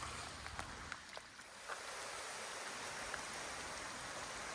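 Steady hiss of water in a wet forest, with a few light ticks in the first second or so.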